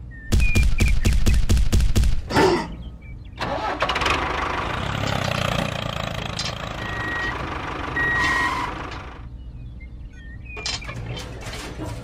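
Tractor engine cranking and starting, a rapid chugging of about five or six beats a second, then running steadily for several seconds, with the chugging coming back near the end.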